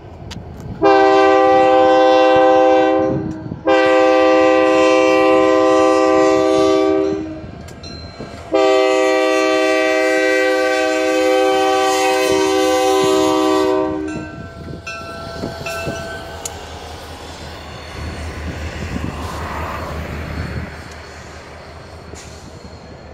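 Horn of a Union Pacific EMD GP40-2 diesel locomotive, with several chimes, sounded in three long blasts, the last one the longest. The locomotives then pass close by with their engines running and their wheels on the rails.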